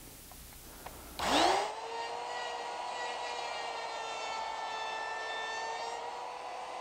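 Router fitted with a 3/16 inch radius roundover bit switching on about a second in, its whine rising quickly to full speed, then running steadily as it eases the edges of the wood.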